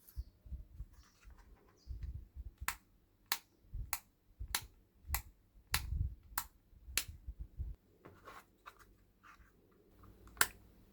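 A run of nine sharp, evenly spaced clicks, a little under two a second, over low uneven rumbling, then a single louder click near the end.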